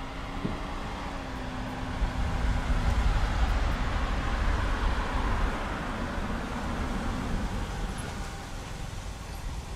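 A small car driving up a street and pulling in toward the curb, with engine and tyre noise. The sound builds about two seconds in, is loudest around the middle, then eases off as the car slows.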